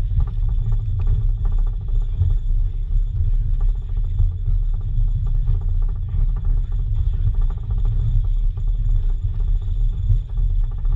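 Low rumble of a train hauled by Canadian Pacific 2-8-0 steam locomotive 3716, heard from aboard a moving car, with wind gusting on the microphone.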